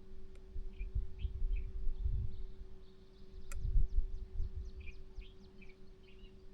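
Small birds chirping in short bursts, with a quick run of high falling notes in the middle. Wind buffets the microphone in low gusts and is the loudest sound. A faint steady hum runs underneath.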